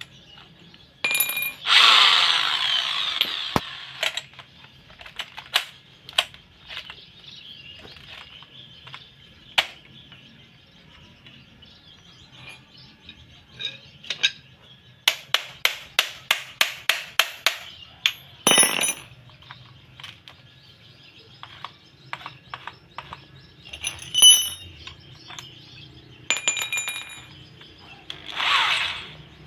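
Metal parts of a homemade steel drill mortising attachment being handled and fitted onto a corded electric drill: scattered clicks and clinks, a run of quick even clicks about halfway through, and a few short louder noisy bursts near the start and near the end.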